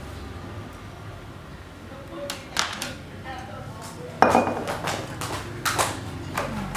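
White porcelain spoon knocking and clinking against a ceramic bowl while mixing seasoning into minced meat, with a few separate clinks and one louder clatter about four seconds in, over a steady low hum.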